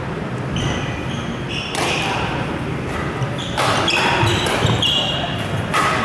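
Badminton rally in a large echoing hall: three sharp racket strikes on the shuttlecock about two seconds apart, with sneakers squeaking on the court floor between them.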